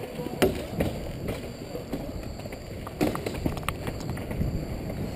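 Inline skate wheels rolling and striding on a hard outdoor sport-court surface, a low rolling rumble close to the microphone. Scattered sharp clacks come through it, the loudest about half a second in and again about three seconds in.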